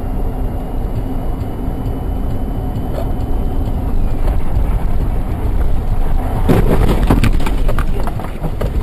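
Steady vehicle road and engine rumble, with a burst of sharp knocks and clatter lasting under a second about six and a half seconds in.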